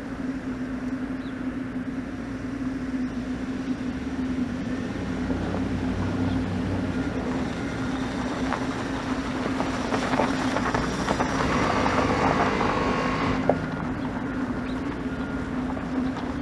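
Pickup truck's 5.8-litre V8 gas engine running with a steady hum. About ten seconds in, a louder rush of noise builds and then cuts off suddenly.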